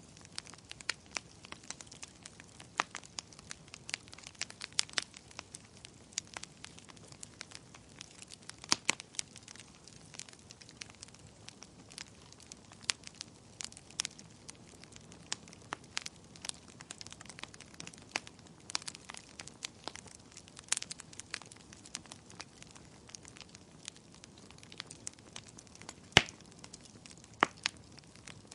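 Fire crackling, with many irregular sharp pops and snaps over a soft steady hiss; the loudest pop comes about 26 seconds in.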